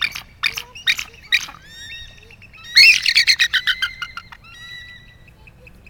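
Bald eagle calling: a few short, high notes, then about three seconds in a rapid run of high chattering notes lasting about a second and a half.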